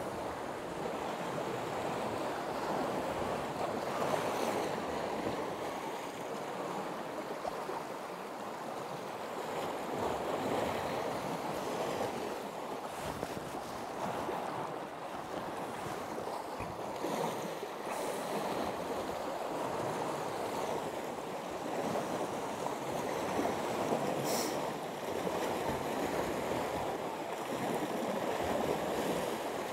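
Sea waves washing against the shore rocks: a steady rushing surf with no pauses.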